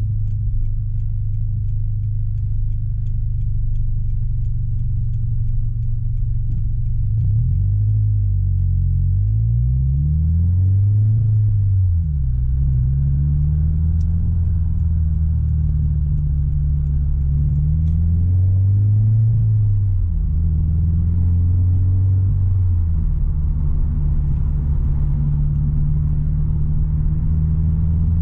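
Subaru BRZ's flat-four engine through a loud aftermarket exhaust with a deep tone, heard from inside the cabin as the car is driven. The engine note is steady at first, then rises and falls in pitch several times as the driver works the throttle and changes gear, and settles into a steady drone near the end.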